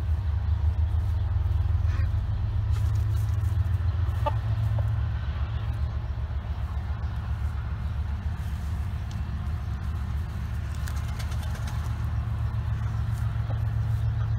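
A steady low rumble with a few soft chicken clucks over it.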